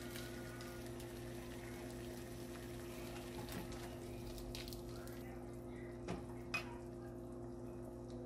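Pot of water heating on an electric coil stove, a soft bubbling hiss over a steady low hum, with two light clicks about six seconds in.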